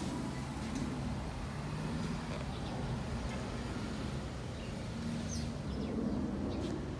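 Steady low hum of a vehicle engine, with a few short, high bird chirps near the end.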